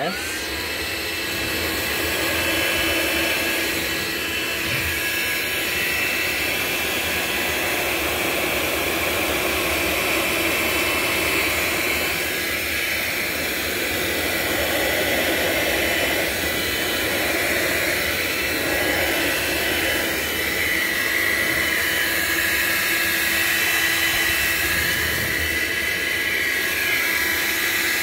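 Hoover Linx cordless stick vacuum vacuuming a hard floor with its brush roll off: the motor spins up at the start, then runs steadily with a whine over the rush of suction.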